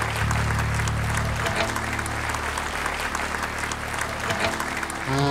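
Concert audience applauding, with a low sustained note from the band's instruments held underneath. A pitched instrument chord comes in right at the end as the next song starts.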